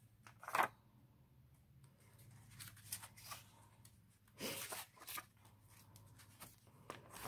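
Faint rustling of paper banknotes and a paper budget sheet being handled against a clear plastic binder pocket, in a few short bursts, the loudest just after the start and again about four and a half seconds in.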